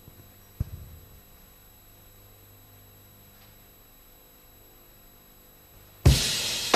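Faint steady hum with a soft thump about half a second in; about six seconds in, a karaoke backing track starts suddenly and loudly with a drum and cymbal hit.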